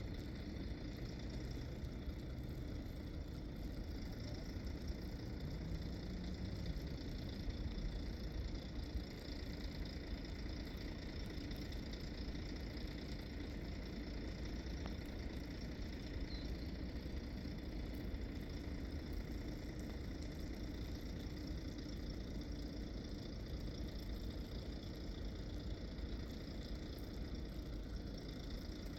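Steady low rumble of an engine running, with no change in pitch or level.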